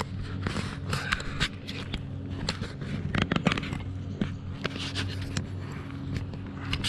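Close-up handling noise on a GoPro Hero7 Black: fingers rubbing, scraping and clicking against the camera right at its microphone, many times over. A steady low engine hum runs underneath.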